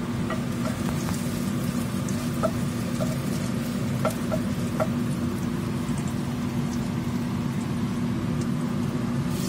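Chopped garlic sizzling in oil in a nonstick wok as it is sautéed, stirred with a spatula that makes a few light taps against the pan. A steady low hum runs underneath.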